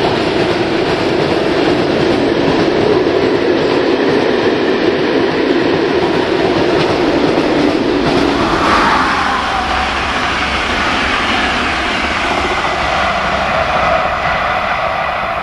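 Freight train of hopper wagons rolling past, its wheels running steadily on the rails. About eight seconds in, the sound changes to a whine that falls in pitch as an oncoming express hauled by a Škoda 109E electric locomotive passes.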